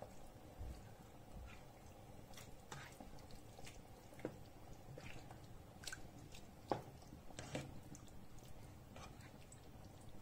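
Faint wet squelching with irregular clicks and scrapes of a utensil stirring chicken and vegetables in sauce in a frying pan. The loudest knock comes about two-thirds of the way through.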